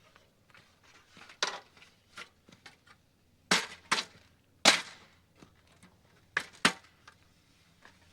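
A string of irregular sharp knocks and clanks, like hard objects being handled and set down, the loudest three around the middle and a quick pair near the end.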